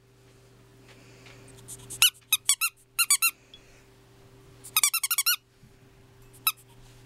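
A squeaky tennis-ball dog toy squeezed in quick bursts of high squeaks: short runs about two and three seconds in, a longer run about five seconds in, and a single squeak near the end.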